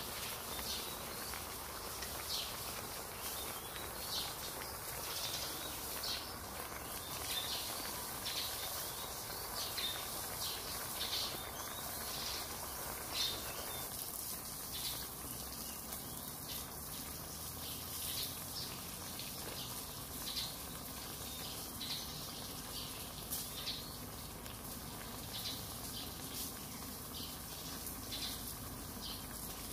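Self-heating hot pot bubbling and crackling as its heater warms the meal: a run of soft, irregular pops over a low hiss.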